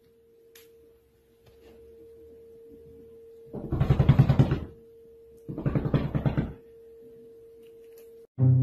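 Domestic cat growling in two long, rough, low yowls of about a second each, a few seconds in: the defensive warning of a cat with its back arched and fur bristling. A faint steady hum runs beneath.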